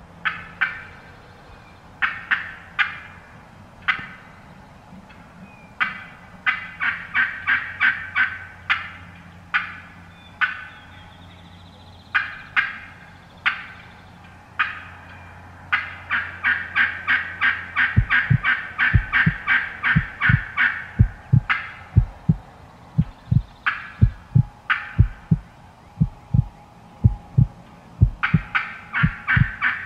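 Wild turkeys gobbling again and again, several gobbles at a time, some running together into long rattling strings. About two-thirds of the way through, a low, steady thumping beat of about two a second starts up under the gobbles.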